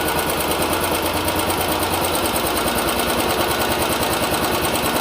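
Royal Enfield Bullet 350 BS6 single-cylinder engine idling steadily through its stock exhaust, an even rapid beat.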